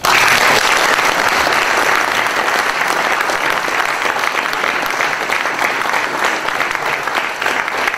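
Audience applauding, breaking out all at once and keeping up steadily, easing only slightly.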